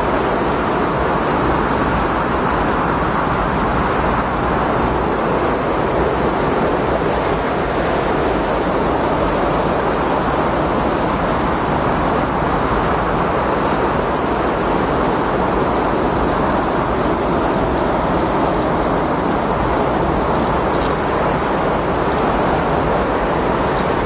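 Windstorm recording: wind blowing hard and steadily as an unbroken rush.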